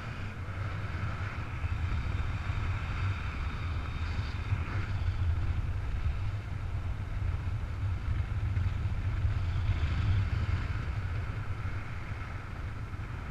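Wind rushing over the microphone of a camera on a paraglider in flight: a steady low buffeting with a fainter hiss above it.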